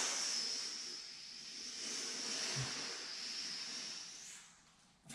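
A woman's long, forceful exhale through the mouth, a steady hiss of breath that fades out after about four seconds as she empties her lungs to contract the abdominal muscles.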